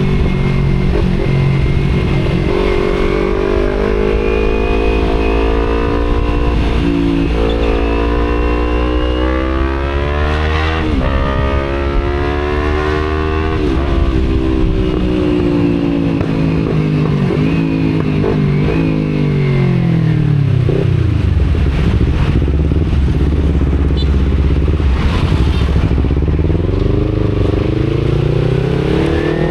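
Kawasaki Z250 parallel-twin engine through an aftermarket Akrapovic exhaust, accelerating: its pitch climbs, drops at a gear change about eleven seconds in and climbs again. It then falls away as the bike slows, holds low for several seconds and starts rising again near the end.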